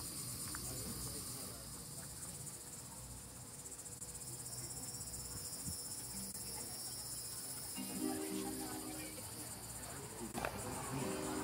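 Crickets chirring steadily outdoors, with a few brief faint pitched sounds about eight seconds in and again near the end.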